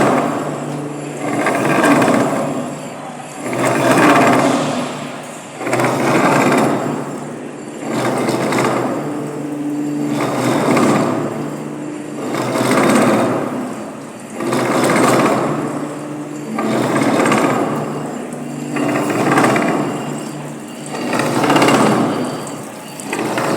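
Metal lathe running a face and side milling cutter through metal, the cutting noise swelling and fading in a regular cycle about every two seconds over a steady machine hum.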